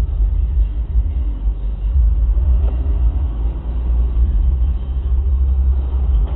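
Steady low rumble of a car's engine and road noise heard inside the cabin through a dashcam's microphone, with no distinct knocks or impacts.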